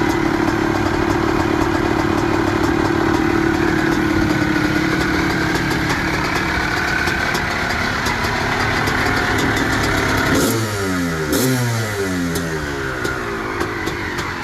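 2005 Honda CR250R's 249 cc single-cylinder two-stroke engine, freshly rebuilt, running at a steady speed. Over the last few seconds it is revved in several quick blips, its pitch rising and falling.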